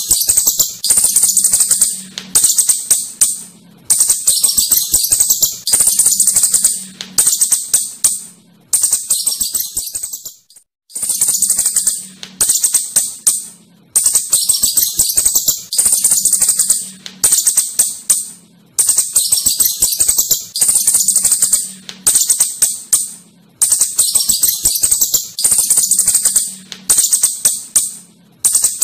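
Asian house shrew (clurut) giving repeated bursts of high-pitched, rapid clicking chatter, a new burst about every second and a half, with a brief pause about ten seconds in.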